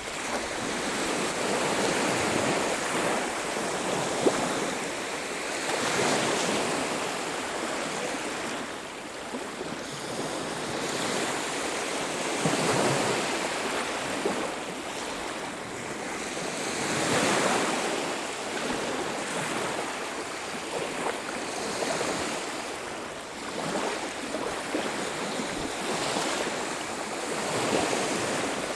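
Ocean surf washing onto a beach: waves break and wash up in slow swells every few seconds, with a light wind noise. There is one brief sharp tick about four seconds in.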